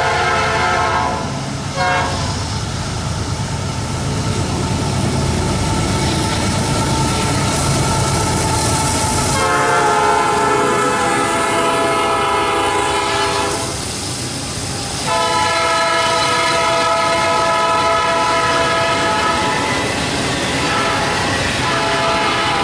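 Freight locomotive's multi-chime air horn sounding several long blasts, each a chord of several tones held for up to about four seconds. Under the horn, the low diesel rumble of the passing locomotives fills roughly the first half. After that the steady rolling noise of double-stack container cars on the rails carries on.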